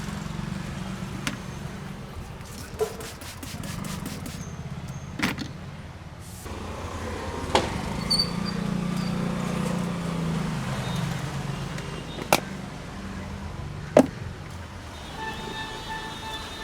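Street traffic rumbling steadily, broken by about seven sharp knocks and a quick run of clicks, with a vehicle horn sounding near the end.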